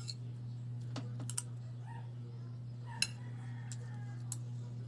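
Cutlery clicking and tapping against a plate a handful of times while eating, the sharpest click about three seconds in, over a steady low hum.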